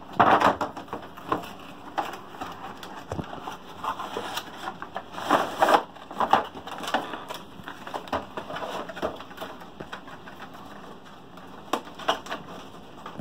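A cardboard toy box with a clear plastic window being handled and closed up: irregular crinkling and rustling of plastic and card with scattered clicks. It is loudest at the start, around the middle and again near the end.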